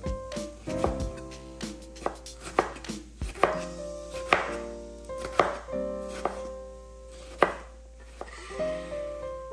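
Chef's knife chopping red bell pepper on a bamboo cutting board, the blade knocking the board in irregular strokes about once or twice a second.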